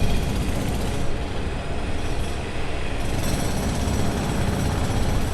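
Loud, steady mechanical rumble with rattling, heavy in the bass, with the high rattle brightening about three seconds in.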